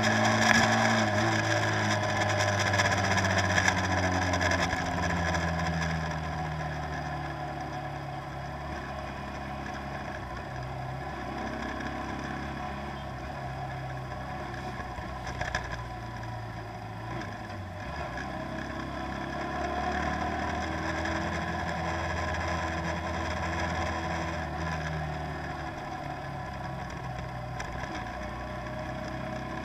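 Boat engine running steadily under a constant rush of wind and water, its pitch drifting slowly up and down; a little louder for the first few seconds.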